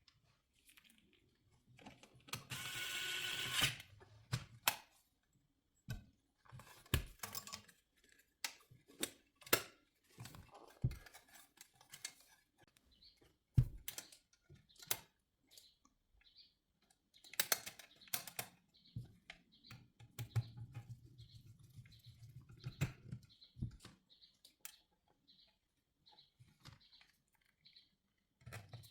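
Scattered light clicks, taps and knocks of parts being handled and fitted as a car head unit's cover is put back on, with a short rush of noise about three seconds in.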